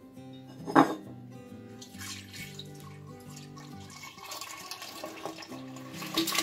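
Milk pouring from a carton into a glass jug, a steady liquid splashing that builds from about four seconds in. About a second in there is one sharp knock, the loudest moment.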